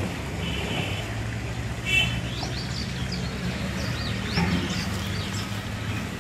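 Small birds chirping repeatedly over a steady low motor hum.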